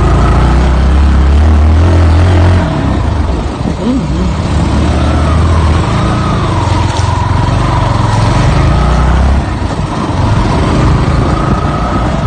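Wind buffeting a phone's microphone, a loud low rumble that drops away about two and a half seconds in and again near the end, with a thin wavering tone above it.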